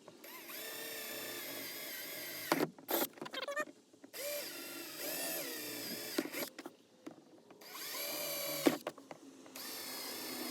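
Power drill boring a mounting hole, run in three bursts of about two seconds each, its whine dipping and shifting in pitch as the bit bites. Clicks and knocks sound between the bursts.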